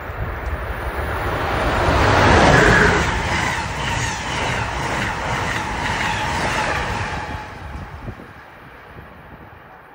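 Amtrak passenger train, an electric locomotive hauling stainless-steel coaches, passing at speed: a rush of wheels on rail that builds to its loudest about two and a half seconds in. A steady run of clicking from the wheels over the rails follows, and the sound fades away after about seven seconds.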